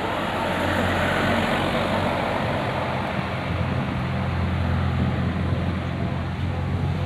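A large bus's engine is running, with road and tyre noise. The low engine hum grows stronger over the second half.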